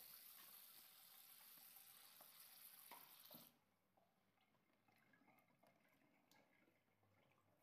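Faint water running from a kitchen tap onto a cloth in the sink. The flow stops suddenly about three and a half seconds in, leaving only faint drips and small handling sounds as the cloth is wrung out.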